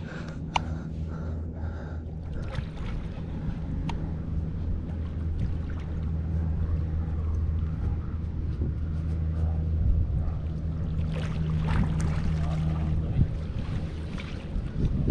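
A boat's motor running steadily at low speed, a low even hum, with more scattered noise in the last few seconds.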